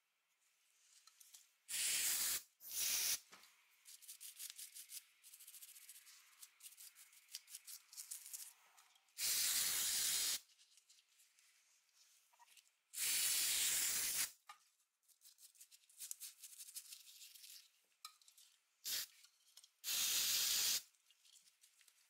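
Aerosol cleaner sprayed onto small hair-dryer switch parts in several short hissing bursts of about a second each. Between the bursts a toothbrush scrubs the parts with a quick, scratchy rubbing.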